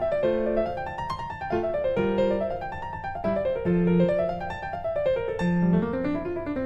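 Background piano music, with notes running up and down in repeated arpeggios over a low bass line.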